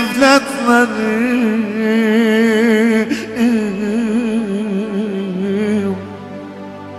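Live performance of a slow Turkish-language folk lament: amplified male singing with electronic keyboard accompaniment. The melody line is drawn out with heavy vibrato and drops quieter about six seconds in.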